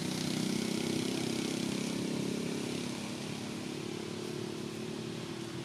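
A motor vehicle engine running steadily, easing off slightly about halfway through.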